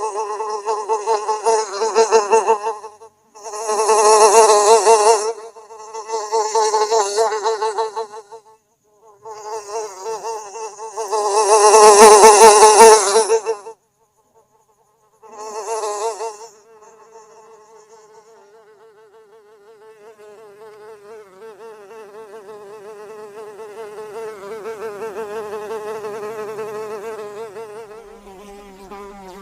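Houseflies buzzing in several loud bursts of a few seconds each, with short gaps between, then a fainter continuous buzz that swells and eases again.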